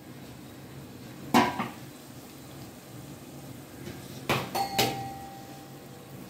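Metal kitchen utensils clinking: one sharp knock about a second in, then three quick knocks about four seconds in, one leaving a short metallic ring.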